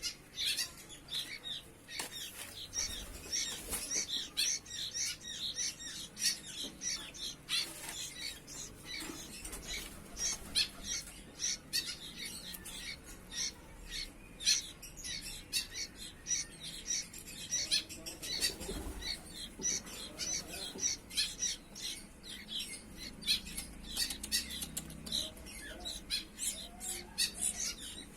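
Young sooty-headed bulbul chicks chirping over and over in short, high calls, several a second.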